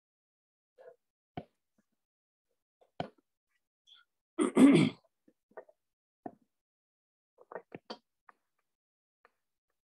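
A person clears their throat once, about halfway through, in a short two-part burst. A few faint, short clicks come before and after it.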